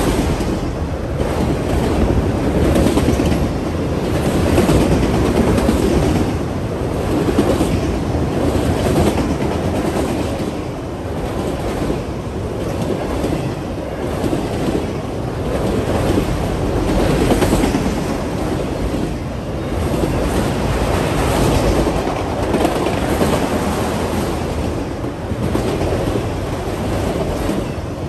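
Freight train of autorack cars rolling past close by: a steady rumble of steel wheels on rail, with a repeated clatter of wheels over rail joints.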